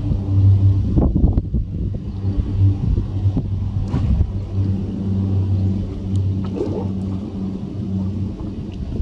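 De Havilland Canada DHC-6 Twin Otter floatplane's twin turboprops droning steadily as it climbs away after takeoff, a low propeller hum that slowly fades. Wind rumbles and buffets on the microphone throughout.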